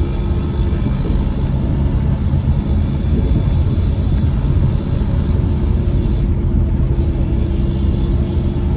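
Steady engine hum and road rumble of a moving car, heard from inside the cabin.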